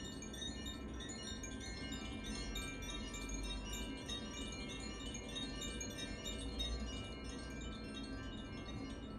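Carillon chimes being played: a continuous, dense shimmer of many short, high ringing notes overlapping one another.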